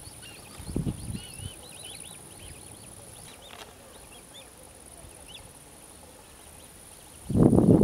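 Many short, thin, arching chirps from birds, over a steady high insect-like hiss. A loud low rumble breaks in near the end.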